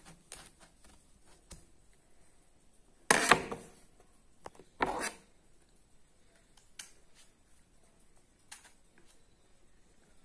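Kitchen knife cutting pieces off a scored raw green mango: scattered light cutting strokes and clicks, with two louder, longer slicing strokes about three and five seconds in.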